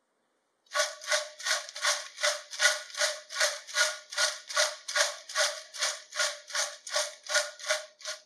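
Fried potato chips being shaken and tossed in a stainless steel bowl to mix in the seasoning: a crisp, rhythmic rattling of about two and a half shakes a second, starting about a second in.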